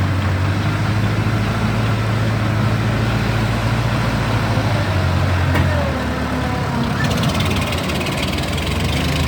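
A vehicle engine running steadily at idle with a low hum.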